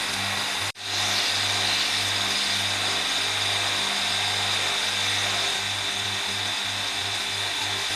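Electric motor spinning a drum on its shaft, a steady hum with the hiss of a bamboo spoon blank being sanded against the drum. The sound cuts out sharply for a moment under a second in, then carries on.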